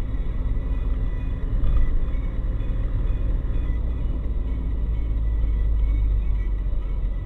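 Steady low rumble of a car driving, heard from inside the car through a dash camera, with a faint steady high tone above it.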